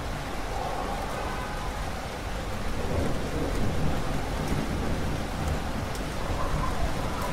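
Steady heavy rain with a low rumble of thunder that swells about three seconds in.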